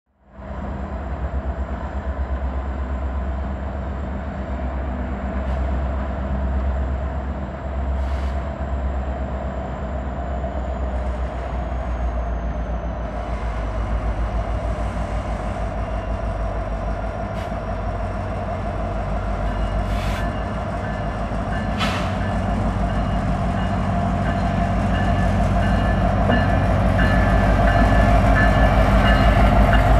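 EMD SD70M-2 diesel-electric locomotive's two-stroke V16 engine rumbling as it leads a freight train slowly up to and past the listener, growing steadily louder as it draws close. Two sharp clicks come about two-thirds of the way through.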